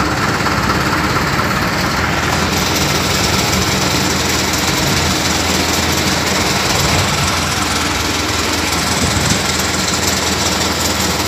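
Diesel engine of a truck-mounted mobile crane running steadily at raised revs, driving the crane as it hoists a heavy steel frame.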